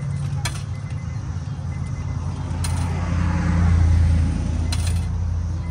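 Steady low motor hum that swells louder for about a second between three and four seconds in, with a few sharp clicks.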